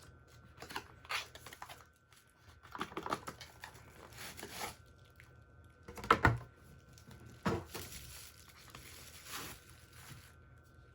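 Paper and cardboard packaging being torn open and crinkled by hand, with two sharper knocks about six and seven and a half seconds in as the box is handled.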